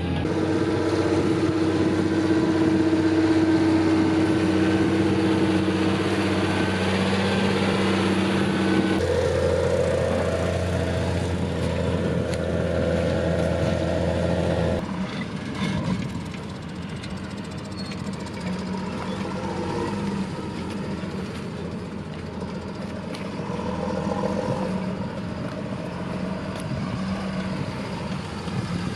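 John Deere 7720 tractor's six-cylinder diesel engine running steadily under load while pulling a plough, a low drone with a steady hum of tones. It is heard first from inside the cab, then from out in the field and quieter about halfway through.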